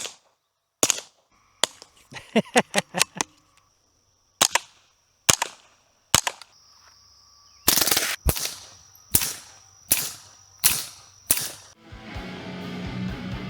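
.22 rimfire gunshots at the range: single shots about a second apart, a quick string of about seven shots between two and three seconds in, then more single shots. Music with a strummed guitar comes in near the end.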